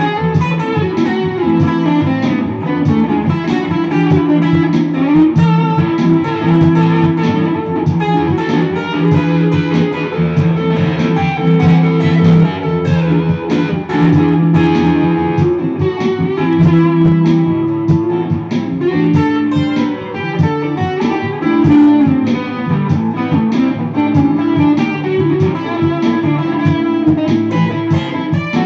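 Semi-hollow-body electric guitar playing a busy line of picked notes over low notes held for several seconds at a time.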